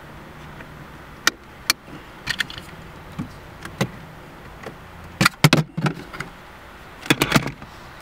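Plastic clicks and knocks from a phone being handled in a windshield phone mount, with two single clicks early, then louder rattling clusters about five and seven seconds in. A low steady hum of the car cabin lies underneath.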